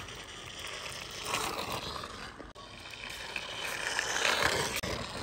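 Small plastic toy pickup truck's wheels rolling and scraping over rough concrete as it is pushed by hand: a gritty rolling noise that swells about a second in and again near the end.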